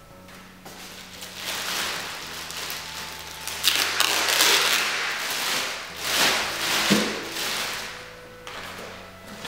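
Clear plastic bag crinkling and rustling as it is pulled open and folded back off a boxed item, in several swells with a few sharp crackles, loudest about halfway through.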